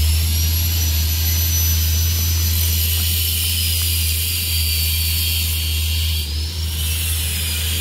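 A loaded dump truck's diesel engine rumbling steadily as it drives away over the gravel road. A high, whistling hiss runs over it, breaking off briefly about six seconds in.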